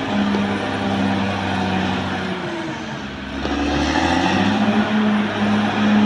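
Caterpillar D6R XL bulldozer's diesel engine running under load with a pulsing drone. It eases off about two to three seconds in, then builds up again about four seconds in.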